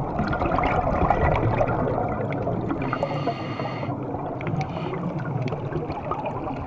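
Underwater ambience picked up through a camera housing: a steady water rush with scattered short clicks, and about three seconds in a brief hiss lasting around a second.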